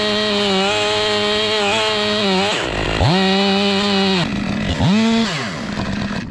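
Two-stroke chainsaw running at high revs, then revving down and back up: the revs fall about two and a half seconds in, rise again, fall once more, and come back up in a short burst of throttle near the five-second mark before sinking again. The sound cuts off abruptly at the end.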